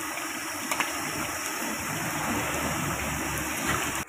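Tahu aci, tofu pieces coated in tapioca batter, deep-frying in a wok of hot oil: a steady sizzle and bubbling, with a brief click about a second in. It cuts off abruptly at the very end.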